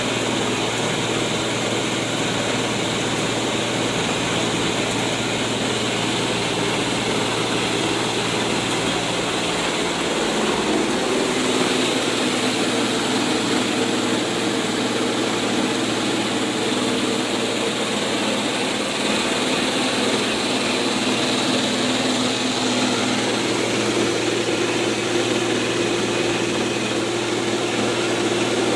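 Rice mill running steadily as it hulls rice: a loud, even machine noise with a humming drone, its tone shifting slightly about ten seconds in.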